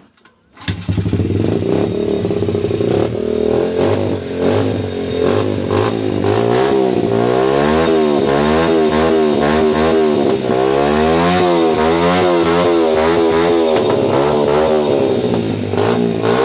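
Small single-cylinder motorcycle engine fitted to a homemade motorized bicycle, starting within the first second of its first test run. It idles, then is revved up and down over and over for several seconds before settling back.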